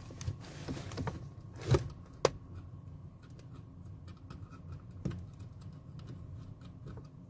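Small metal clicks and taps of the accelerator cable end and its lock clip being fitted onto the truck's pedal linkage lever: two sharp clicks about two seconds in and a softer one about five seconds in, with faint ticking between, over a steady low hum.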